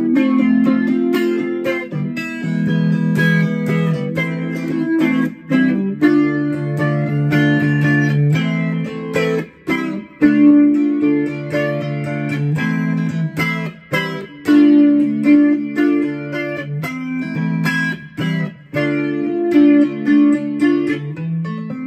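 Custom electric baritone ukulele played through a micro amp, strumming a chord progression with a few brief stops between chords.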